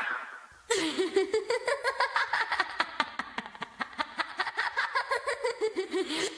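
A woman's high-pitched laugh, a long run of quick repeated ha-ha pulses, starting about a second in and stopping near the end.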